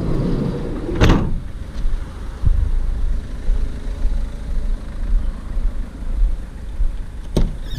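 A single sharp bang about a second in, over a steady low rumble, with a smaller click near the end.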